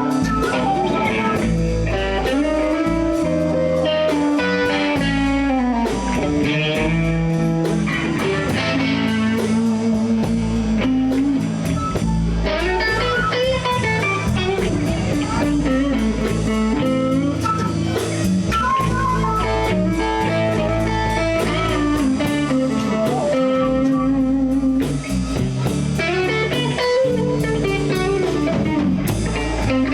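Live blues band playing an instrumental passage: bent electric-guitar lead lines over bass and drums.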